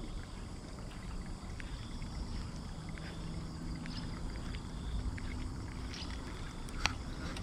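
Low rumble of wind on the microphone with a faint hum through the middle and a few light clicks, one sharper click near the end.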